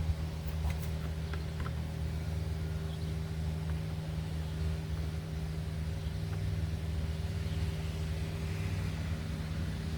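A steady low mechanical hum, unchanging throughout, with a few faint small clicks in the first couple of seconds.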